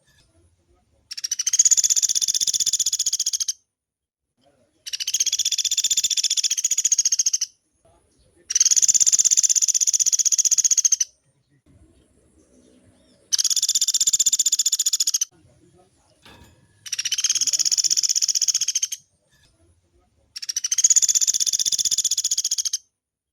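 Woodpecker giving its long, fast rolling trill, six calls of about two and a half seconds each with short pauses between them.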